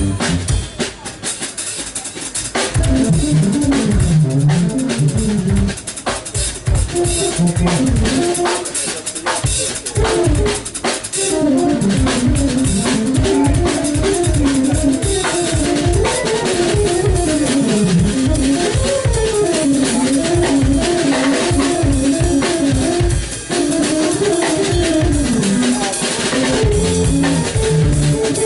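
Live jazz trio music: a keytar plays a winding melodic line over a drummer's busy kit pattern of kick, snare and rimshots.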